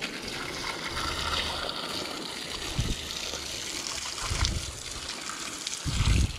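Water splashing and trickling over stone steps as they are washed down, with three dull thumps, the last and loudest near the end.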